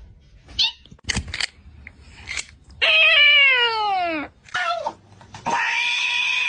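A cat meowing: one long, loud drawn-out meow that slides down in pitch about three seconds in, then a second, steadier call near the end.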